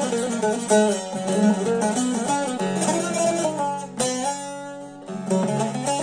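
Long-necked bağlama (saz) played solo: a quick plucked melody over a steady drone note. About four seconds in, a struck note rings and fades for a moment, then the picking picks up again.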